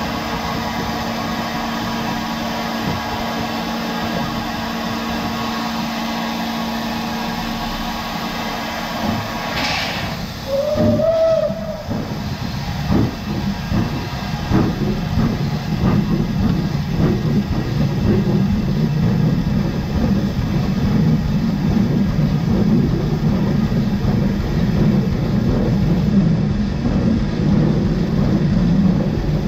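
Steam locomotive No. 92.2271 standing with a steady hum and hiss, a short hiss and then a brief whistle blast about ten seconds in, followed by exhaust beats that come faster and louder as the train starts away and gathers speed.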